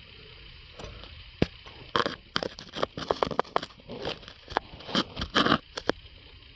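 Irregular crunching, scraping clicks and knocks over a steady hiss. They begin about a second in with one sharp click, come thickly for the next few seconds, and stop shortly before the end.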